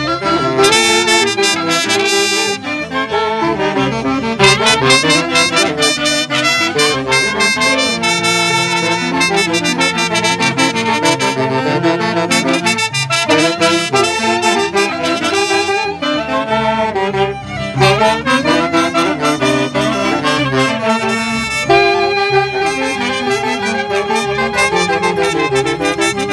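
Live Andean string-and-wind band playing a tune together: violins, saxophones, clarinet and trumpet.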